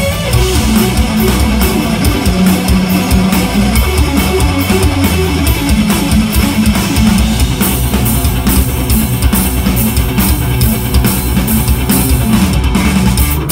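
Live instrumental metal band: a Telecaster-style electric guitar plays fast runs of notes over bass guitar and a drum kit, with the cymbals growing louder from about halfway through.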